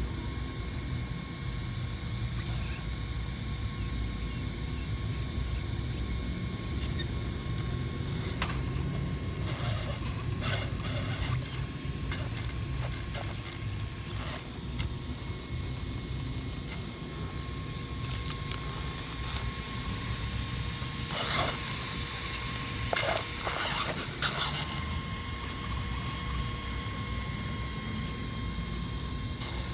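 Electric drivetrain of an Axial SCX10-based RC rock crawler whining at a steady pitch as it crawls slowly over concrete rubble, with scattered clicks and scrapes of gears and tyres on rock, thickest about ten seconds in and again past twenty seconds. A steady low rumble runs underneath.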